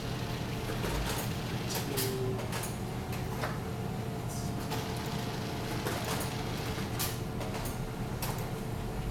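Steady low hum of room tone, with a few faint short clicks scattered through it.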